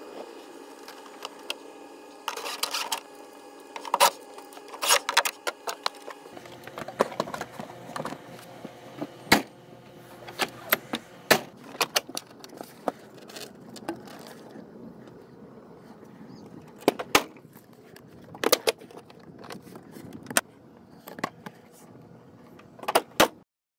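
Scattered sharp clicks and knocks of a hard plastic truck-bed toolbox and its contents being handled, over a steady background hum that gains a deeper tone about six seconds in.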